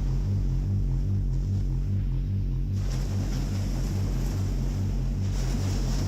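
Battery-powered synthesizer playing a low pitched bass tone that pulses fast and evenly, like a throbbing motor.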